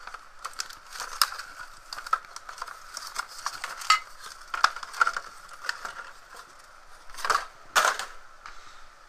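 Cardboard and paper packaging crinkling and rustling as a plastic soldering iron controller is pulled out of its box insert, with many small clicks and knocks. Two louder, longer rustles come near the end.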